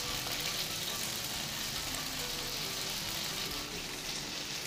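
Tofu frying in shallow oil in a nonstick pan, a steady sizzle, with soft background music underneath.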